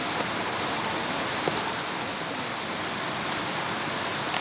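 Steady hiss of rain, with a few short clicks as scissors cut open a plastic courier package.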